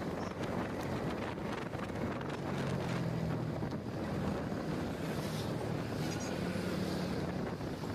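Wind buffeting the microphone while riding a motorcycle, over the low, steady hum of its engine, which swells slightly around three seconds in and again near the end.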